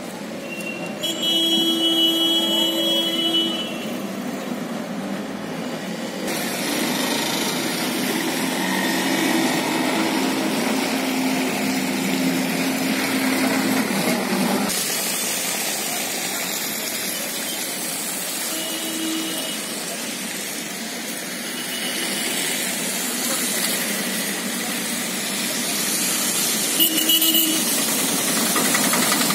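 Street traffic: a steady rush of passing vehicles and engines. A horn sounds for about two seconds near the start, with short toots again about two-thirds of the way through and near the end.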